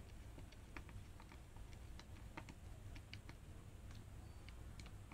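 Faint, irregular small clicks of a flathead screwdriver tightening the screws of the belt clip on a Baofeng UV-5RE Plus handheld radio.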